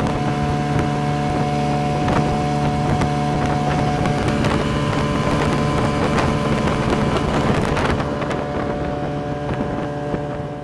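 Vikhr-20 twin-cylinder two-stroke outboard motor running steadily at full throttle, with water rushing along the hull and wind on the microphone.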